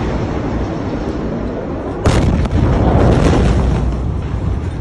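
Blast wave of a huge ammonium nitrate explosion reaching the phone. A low rumble gives way about two seconds in to a sudden very loud boom that buffets the microphone, easing off over the last second.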